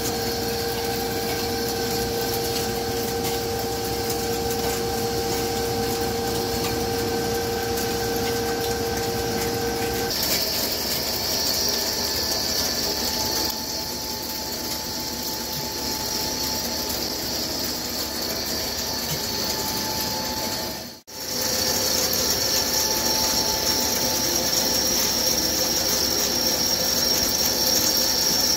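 CNC vertical turning lathe turning a large forged gear blank with a carbide insert: a steady machine-and-cutting noise carrying high steady tones. The tones shift higher about ten seconds in. About three-quarters of the way through, the sound drops out for a moment and returns.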